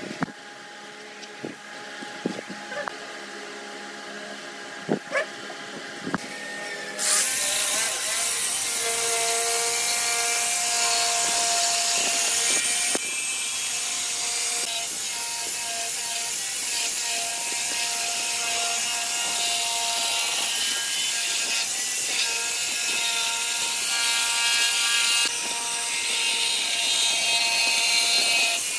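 A few light knocks over a low hum, then from about seven seconds in an electric jigsaw runs steadily, its blade cutting a curve through a wooden board.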